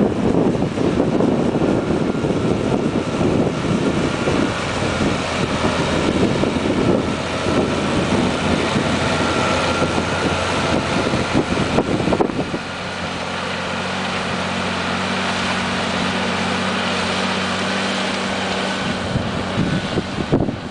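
Deutz Agrotron M625 tractor engine running steadily while pulling a five-furrow reversible plough, with wind buffeting the microphone. About twelve seconds in the wind noise drops away suddenly and the engine's steady hum comes through clearly.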